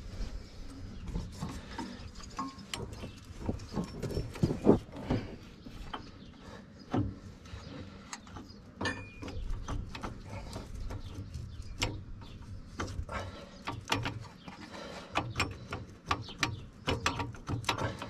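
Metal parts being handled and fitted by hand onto a skid steer's hydraulic pump drive shaft: scattered light clicks, taps and knocks of metal on metal, the loudest about four to five seconds in.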